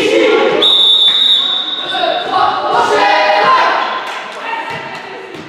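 A referee's whistle blown once for about a second, a single steady shrill tone. Young players' voices call and shout around it in a large, echoing sports hall.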